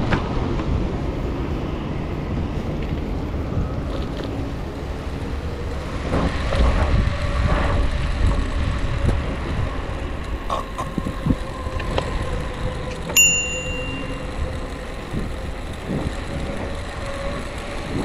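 Bicycle riding along a paved path: steady wind and tyre rumble, with a single short ding of the handlebar bell about thirteen seconds in.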